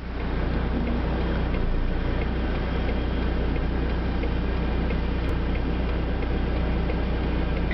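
Fendt 926 Vario tractor's six-cylinder diesel engine running steadily under load while pulling a four-furrow plough through the soil, with a few faint ticks.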